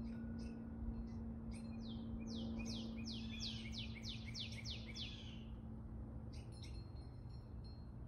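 A songbird singing a run of about ten quick notes, each sliding downward, lasting about three and a half seconds, with a few scattered chirps around it. A low steady hum runs underneath.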